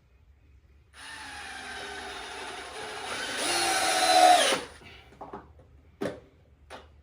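Power drill driving a screw into the pressure-treated wooden pond base for about three and a half seconds. The motor gets louder and its pitch sags slightly as the screw is buried to the head, then it stops. A couple of short knocks follow.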